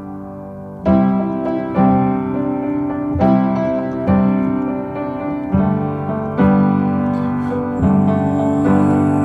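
Piano music: sustained chords struck about once a second, with no singing.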